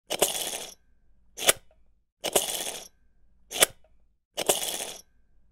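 Sound effect for a spinning wheel of topics, made in three rounds about two seconds apart: each a half-second noisy burst with a sharp start that fades away, followed about a second later by a single sharp click.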